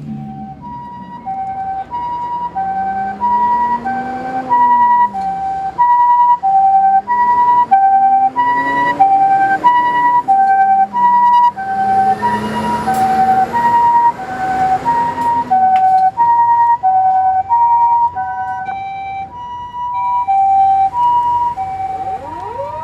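Japanese ambulance two-tone hi-lo siren, from Kyoto City Fire Bureau's Hyper Ambulance, alternating between two notes about every 0.6 seconds, loudest through the middle. Under it a second, lower siren wails slowly up and down and stops about 16 seconds in, and another siren starts rising near the end.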